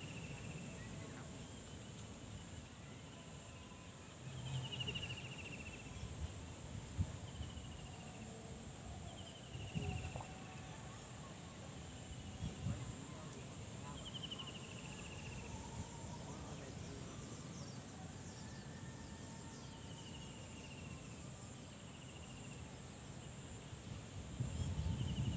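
Steady high-pitched insect drone, typical of crickets, with a short falling call repeating every one to two seconds over it and a few faint low bumps.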